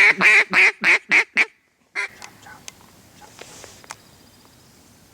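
A fast run of six loud mallard hen-style quacks, each shorter than the last, then one more quack about two seconds in.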